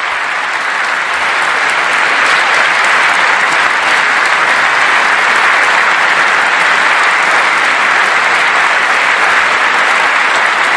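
A large audience applauding: a dense, steady clapping that swells a little over the first two seconds and then holds.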